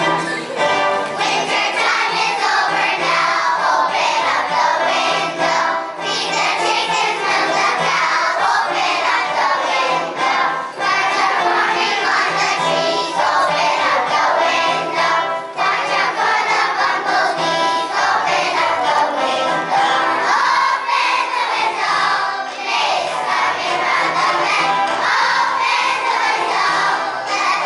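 A choir of first-grade children singing a spring song together over instrumental accompaniment.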